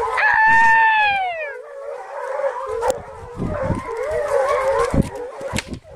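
A pack of American foxhounds baying on a deer's trail: one long howl falling in pitch near the start, then several hounds giving tongue together. Low thuds come through in the second half.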